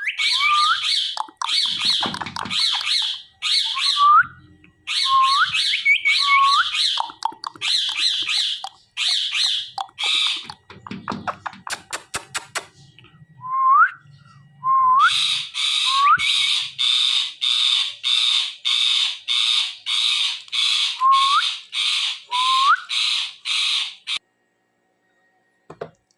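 Ringneck parrot (rose-ringed parakeet) calling: harsh repeated squawks, many beginning with a short rising whistle. There is a quick run of clicks midway, then a steady series of about two squawks a second that stops suddenly near the end.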